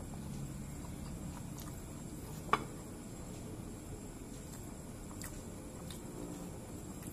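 Close-up eating sounds: chewing with the mouth while fingers gather rice on a ceramic plate. One sharp click comes about two and a half seconds in, and a few faint ticks follow later.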